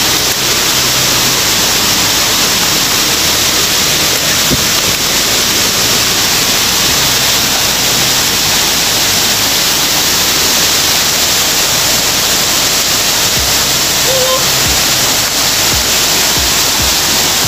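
Steady rush of a shallow rocky stream pouring over boulders and small cascades.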